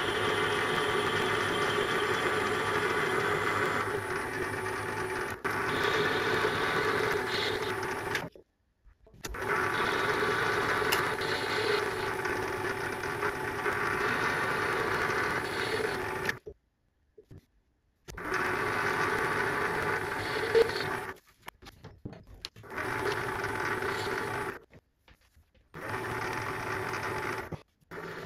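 Small metal lathe running, turning down an aluminium bar with a cutting tool: a steady motor and spindle hum with a constant tone. It cuts off to silence suddenly several times and starts again each time.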